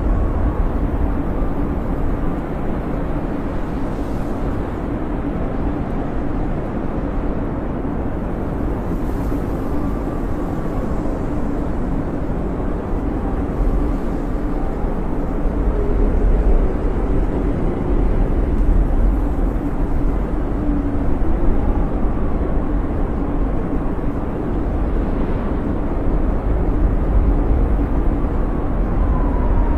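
Storm wind blowing steadily, with a deep rumble and faint whistling tones that waver in pitch.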